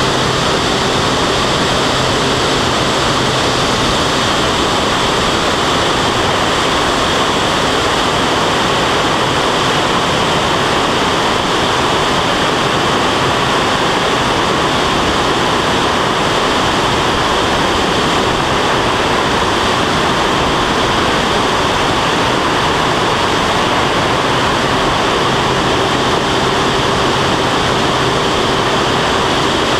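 Steady rushing wind noise over a wing-mounted camera on an aerobatic biplane in flight, with the engine and propeller droning faintly underneath.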